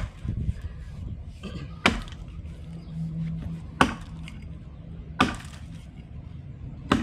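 Felling axe chopping into a knot in dense firewood, four heavy strikes about one and a half to two seconds apart.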